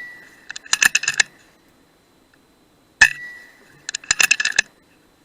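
Shots from an FX Dreamline Lite .177 PCP air rifle. A sharp report rings out into the start, and a second report comes about three seconds in, each with a short ringing tone. Each report is followed less than a second later by a quick cluster of metallic clicks.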